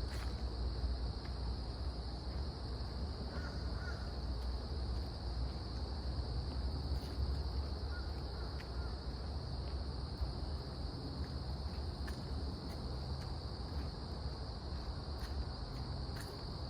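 Steady, high-pitched drone of insects in summer woods, unbroken throughout, over a low rumble.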